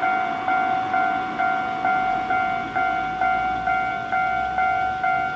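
Japanese level crossing warning bell ringing its repeated ding, about two strikes a second, each strike fading before the next, warning that a train is approaching.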